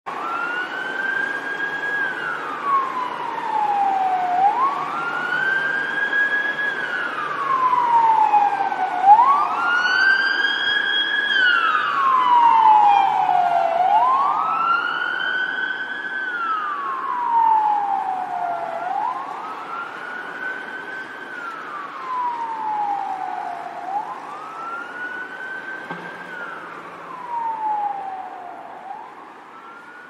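Police car siren in wail mode: the pitch climbs quickly, holds briefly and slides slowly back down, about once every five seconds. It grows louder towards the middle and fades away towards the end, over a steady background hiss.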